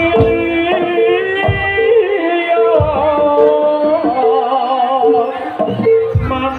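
Live jaranan music from a Javanese gamelan-style ensemble. An evenly repeated ringing note runs with a few low drum strokes, and a wavering melody line rises and bends above it in the middle.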